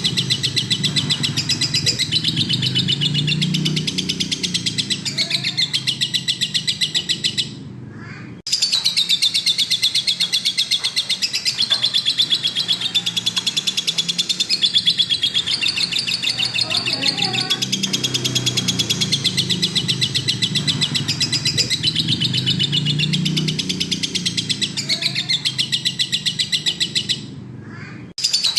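Lovebird in full continuous song: a dense stream of rapid, high chirping and chattering. It breaks off briefly twice, about eight seconds in and near the end.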